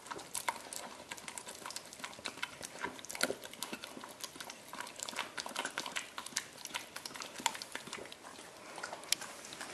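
A dog licking peanut butter off a metal spoon: a rapid, irregular run of wet licks and sharp lip smacks.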